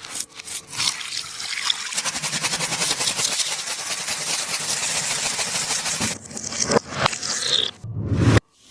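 A squishy toy being squeezed and handled: a few scattered crinkles, then several seconds of dense crackling and squelching, then a few separate squeezes and a low thump near the end.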